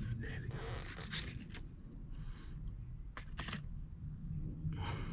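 A few light clicks and scrapes as the parts of an electric seat adjuster's gearbox are handled, over a low steady hum.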